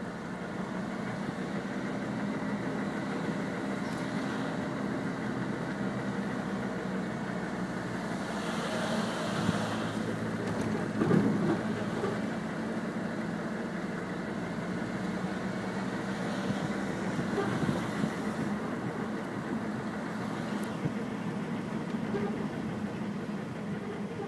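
Steady engine hum and road noise of a car driving slowly, heard from inside the car, with a hiss that rises briefly twice.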